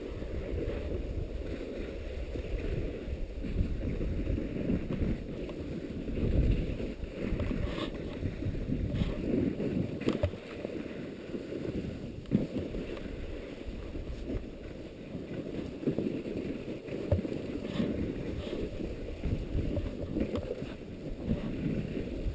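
Strong wind buffeting the camera's microphone: a muffled, gusty low rumble that swells and eases irregularly.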